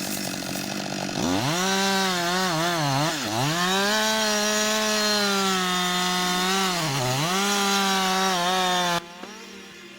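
Two-stroke chainsaw revving up about a second in and running at high speed through wood, its pitch dropping briefly a few times under load. It cuts off abruptly near the end.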